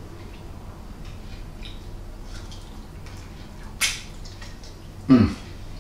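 A man biting into and eating a glazed pork rib: faint quiet mouth and chewing sounds, one short sharp noise about four seconds in, and a short hum falling in pitch a second later that approves of the taste.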